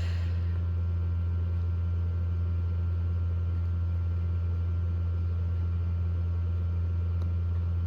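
Steady low hum of an egg incubator running, unchanging throughout.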